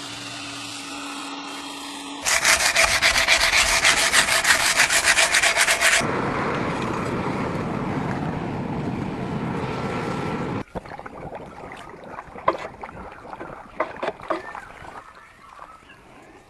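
Abrasive work on steel in several short stretches. First a loud, fast rasping for about four seconds, then a steadier grinding noise, then quieter scraping with scattered clicks near the end.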